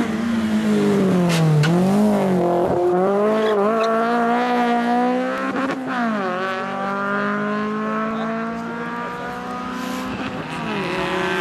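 Rally car engine at full throttle. Its pitch dips through the corner, then climbs in long pulls broken by two gear changes, and the sound fades slightly as the car pulls away. A few sharp cracks sound in the first half.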